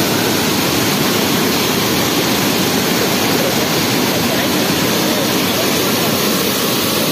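Water pouring from the opened sluice gates of a dam and rushing down the spillway: a loud, steady rush of white water.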